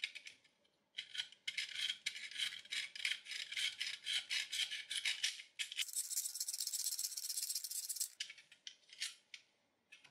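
Utility-knife blade scraping crackled black coating off a brass binocular tube: quick rasping strokes, about four or five a second, then one longer continuous scrape about six seconds in, and a few last strokes near the end.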